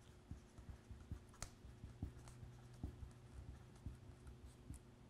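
Faint scratches and light taps of a marker pen writing on a sheet of pattern plastic, over a low steady hum.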